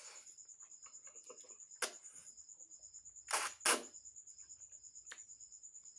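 Crunching bites and chewing of onion while eating, with two loud crunches in quick succession about halfway through and softer ones before and after. A steady, rapid high-pitched chirping runs underneath.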